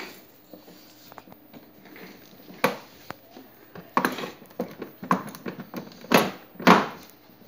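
Hard plastic toy-car wheel being worked onto a metal axle and against the plastic body of a ride-on car: a series of short knocks and scrapes, the loudest two near the end.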